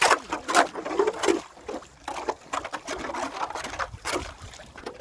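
Hand ice auger being turned through lake ice, its blades scraping and crunching through ice and wet slush in uneven strokes.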